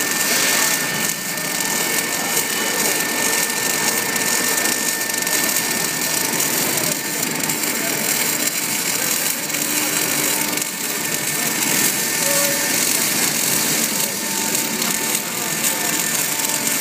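Automatic welding arc crackling and sizzling steadily as the torch lays a continuous seam on a flange turned by a welding positioner.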